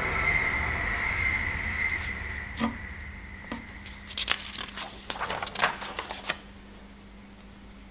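Loose sheets of paper rustling and crinkling as they are leafed through, a quick cluster of crisp rustles a little past halfway. Before that a steady high whine over a low rumble fades away over the first three seconds.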